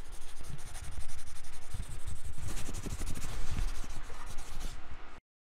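Logo-intro sound effect: a rough, crackling rush of noise with irregular low thuds, cutting off abruptly about five seconds in.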